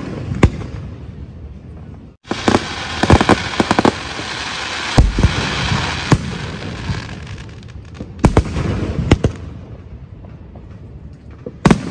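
Aerial fireworks bursting overhead: sharp bangs, with a dense run of rapid pops over a steady hiss from about two seconds in until about nine seconds, then dying away.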